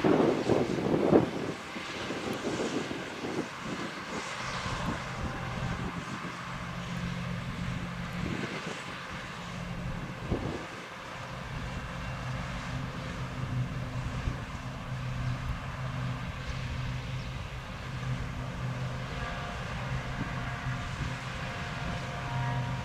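Fendt 6275 L combine harvester running while harvesting: a steady engine drone under a broad rush of machine noise, which is loudest for the first second or so.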